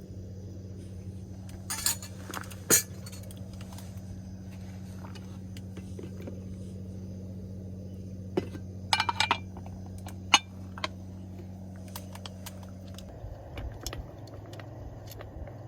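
Small hard objects clinking and knocking a handful of times, with a quick cluster of clinks about nine seconds in, over a steady low hum that stops about thirteen seconds in.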